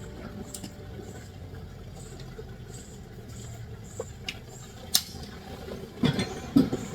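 A low steady background hum with a few sharp clicks spread through, then a cluster of louder knocks near the end.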